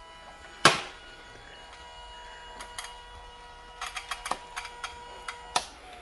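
Hard plastic toy vacuum cleaners being handled: one sharp click about half a second in, then a scatter of lighter clicks and taps in the second half.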